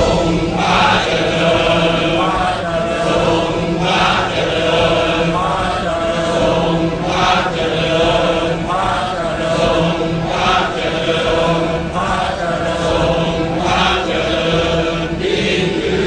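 Background music: a choir chanting in unison over a steady low drone.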